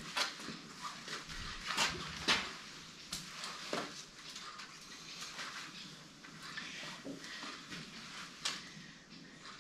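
A horse being handled: irregular knocks and clatter of hooves shifting on a hard floor and the fittings of a rope halter and lead rope, the sharpest knocks about two seconds in and again near the end.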